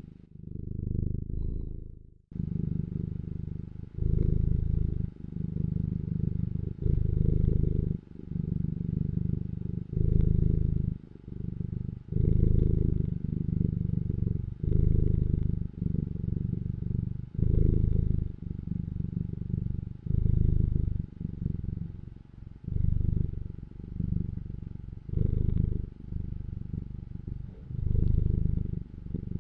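A domestic cat purring, a low continuous rumble that swells and eases in a regular rhythm about once every one and a half seconds as the cat breathes in and out.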